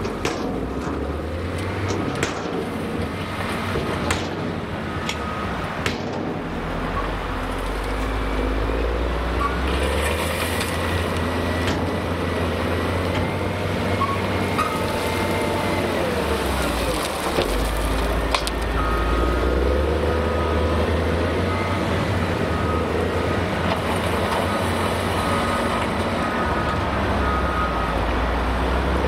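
Cat 160M motor grader's diesel engine running under changing load as its blade pushes through a pile of gravel, the engine note rising and falling. A few sharp clicks in the first several seconds.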